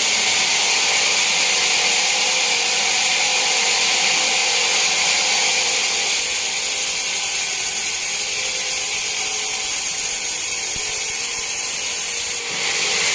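Sawmill band saw running, a steady high-pitched hiss that shifts abruptly near the end.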